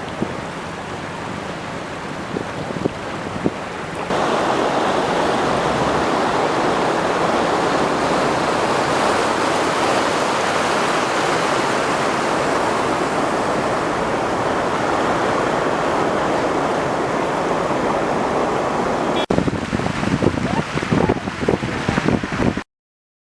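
Flash-flood water rushing down a wadi, a loud, steady rush of water. It jumps to a louder rush about four seconds in, turns to gusty wind buffeting the microphone about nineteen seconds in, and cuts off abruptly near the end.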